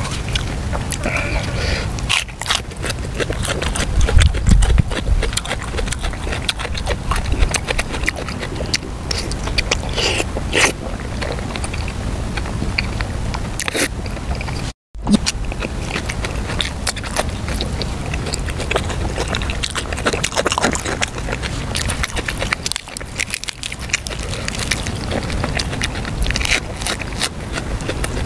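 Close-miked chewing of soft stewed pork: wet smacking and mouth clicks as a man eats. The sound cuts out for a moment about halfway through.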